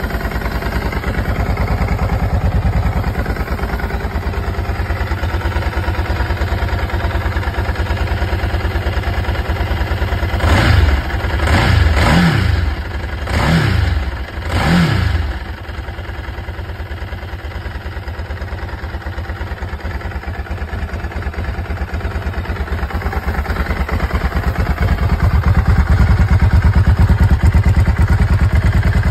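Ducati 999 Testastretta's 998 cc L-twin idling as it warms up from a cold start, blipped four times in quick succession about halfway through, each rev rising and dropping back to idle. It gets louder near the end, heard close to the under-seat exhaust.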